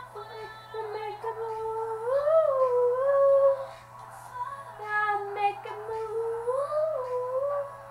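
A young girl's voice singing a melody without words, in long held notes that slide up and down in pitch, with short breaks between phrases.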